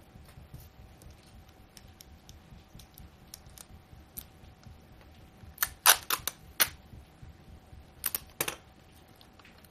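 Fingers pressing and smoothing clear cellophane tape along the edges of a sheet of paper on a wooden tabletop: faint taps and rustles, with four sharp clicks about six seconds in and three more about eight seconds in.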